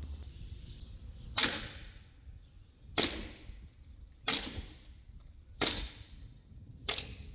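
Rossi Red Wings Gold 1911 gas blowback airsoft pistol firing five single shots, about one and a half seconds apart. Each shot is a sharp, loud report as the gas cycles the slide.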